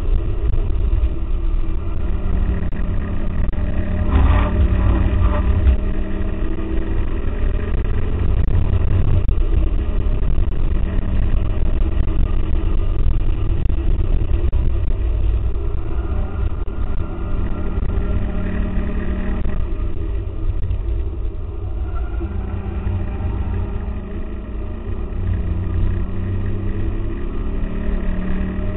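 2004 Mustang GT's 4.6-litre V8 at full track pace, heard from inside the cabin. Its pitch climbs and drops again and again through acceleration, braking and gear changes, over a heavy low rumble.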